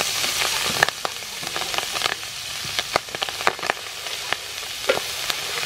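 Clam meat sizzling in hot soybean oil in a frying pan while a metal spatula stirs it, clicking and scraping against the pan. The sizzle is loudest at first and drops about a second in, leaving a quieter hiss under the spatula's clicks.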